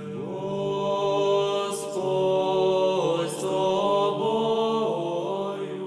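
Slow Orthodox church chant: a sung melodic line that glides between held notes, over a steady sustained drone.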